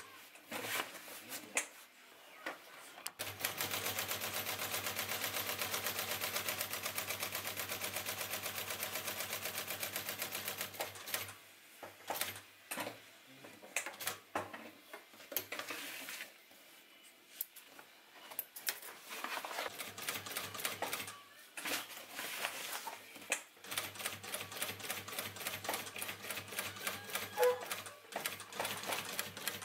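Industrial lockstitch sewing machine stitching a leather strap onto canvas: a steady run of rapid, even needle strokes over the motor's hum starts about three seconds in and stops around ten seconds. Short stop-start stretches and clicks follow while the work is turned, then the machine runs again near the end.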